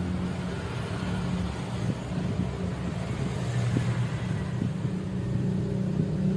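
Steady low motor hum, like an idling engine, with a few faint ticks.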